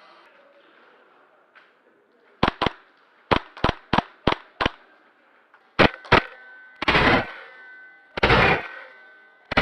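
Airsoft gun firing single shots: two, then five at about four a second, then two more, followed by three short bursts of about half a second each.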